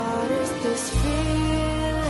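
Song music with held notes; a low bass comes in about a second in.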